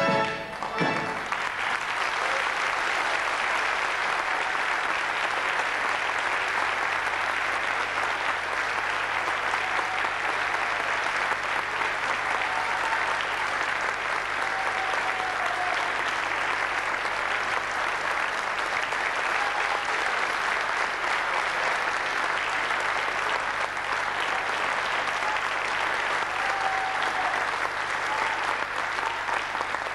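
Music breaks off at the start, then a theatre audience applauds steadily for a long time, with a faint low hum underneath.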